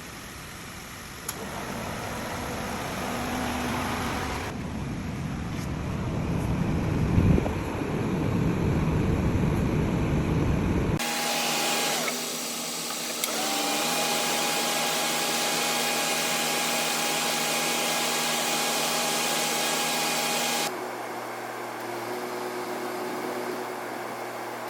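Car air-conditioning running: air rushing from the blower, then a steady machine hum with a high whine through the middle, dropping to a quieter hum near the end, in separate cut sections.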